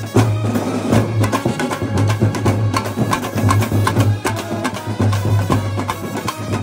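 A large marching band playing live: many drums beating a fast, steady rhythm together, with brass horns playing a melody over them.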